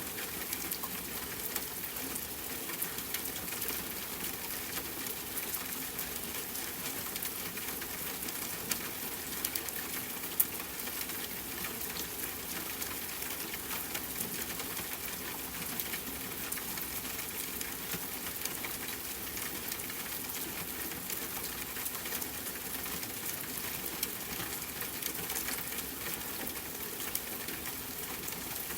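Steady rain pattering on a tent mixed with a crackling campfire, a dense haze of small ticks and pops, with one sharper click about ten seconds in.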